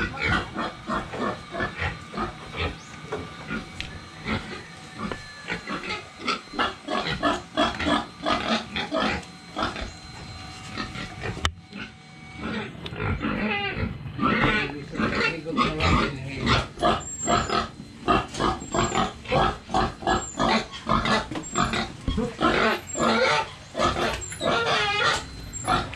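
Pigs calling, many short calls in quick succession, with a brief dip in the sound a little before the middle.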